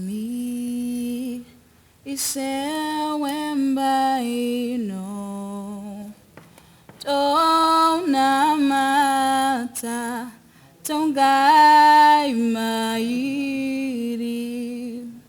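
A woman singing a slow, unaccompanied melody in four long held phrases, with short pauses between them.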